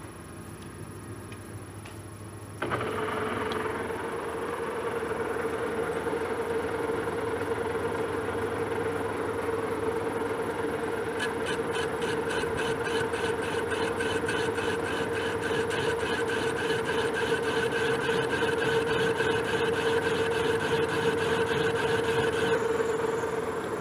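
Metal lathe switched on about two and a half seconds in, then running with a steady whine while a parting tool cuts a washer off round bar stock. From about halfway a rapid, even ticking joins in and stops just before the end.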